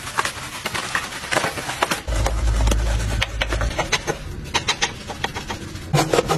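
Brush bristles scrubbing a foam-covered alloy wheel in quick rubbing strokes. A deep low sound comes in about two seconds in for a second and a half, and pitched musical tones join near the end.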